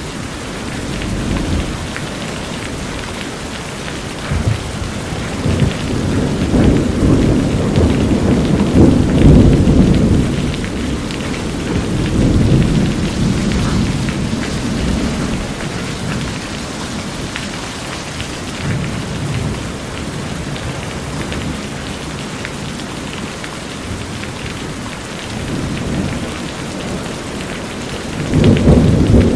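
Steady rain falling on a corrugated metal roof and pouring off its edge, with low thunder rumbling, swelling loudest from about four to ten seconds in and again just before the end.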